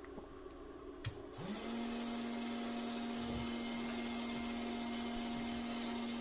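A click about a second in, then an LX200 Classic RA drive's DC motor and gearbox spinning up within half a second to a steady whine at full speed. The drive is in runaway: it runs flat out without being commanded, because its encoder signal is out of adjustment.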